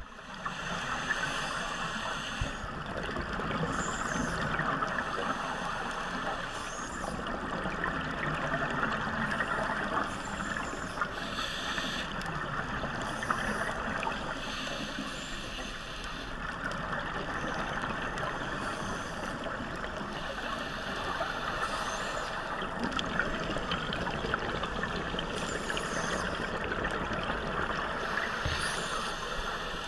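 Scuba divers' regulator breathing heard underwater: a steady muffled wash of bubbling, with hissing breaths and exhaled bubble bursts recurring every few seconds.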